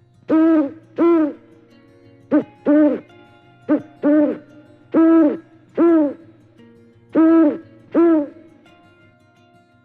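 An animal calling about ten times in short, pitched calls that rise and fall, mostly in pairs about half a second apart.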